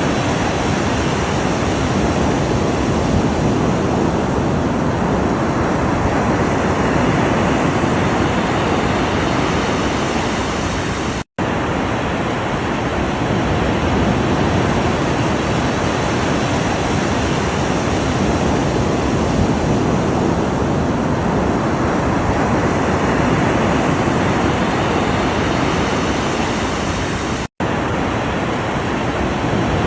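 Continuous rushing ocean surf, a steady wash of waves without a break in level. It cuts to silence for a split second twice, about a third of the way in and near the end.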